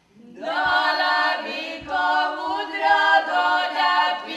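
Women's voices singing an old local song together without accompaniment, in long held, wavering notes, coming in about half a second in.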